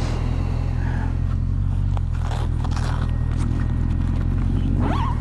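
Motorcycle engine idling steadily as a low, even drone, with a few faint clicks and rustles over it.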